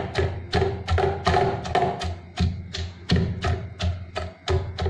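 Wooden pestle pounding soft boiled black chickpeas in a small steel saucepan: a steady rhythm of thuds, about three a second, mashing the chickpeas.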